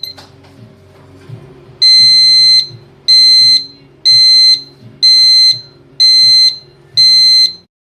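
Electronic alarm buzzer sounding six loud, high, steady beeps at about one a second, starting about two seconds in after a click.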